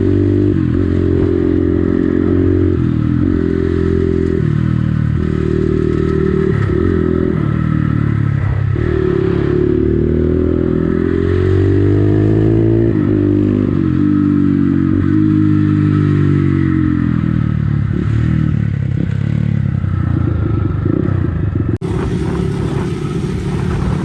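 Crossfire CX250R motorcycle engine under way, its pitch rising and falling again and again as it accelerates, shifts and eases off, with a few short sharp cracks. The sound changes abruptly near the end.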